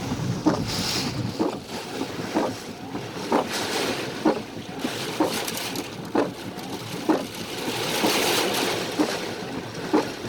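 Severe-storm wind and rain noise buffeting the microphone, with a short regular knock about once a second. The noise swells about eight seconds in.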